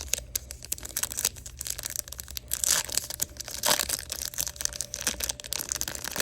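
Crinkling and rustling of a foil trading-card pack wrapper and cards being handled, a quick run of small crackles that gets denser and louder about two and a half seconds in and again near four seconds.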